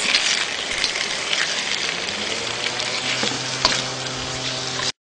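Chicken strips sizzling as they fry in hot oil in a wok, a steady hiss with a few sharp clicks; the sound cuts off suddenly near the end.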